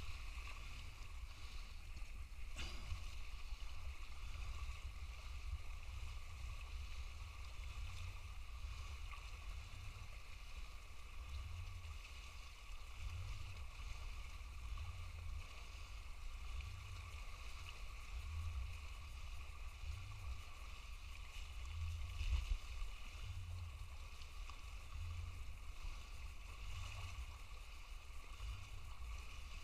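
Light wind buffeting the microphone, a low rumble that rises and falls in gusts, over a faint steady high hiss.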